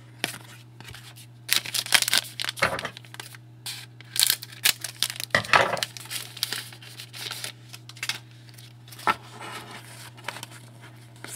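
A trading card pack's wrapper being torn open and crinkled, with the cards handled, in irregular rustling bursts that are loudest in the first half.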